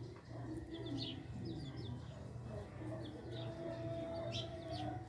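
Birds calling: scattered short high chirps, with a soft held whistled note starting about three seconds in. A steady low hum runs underneath.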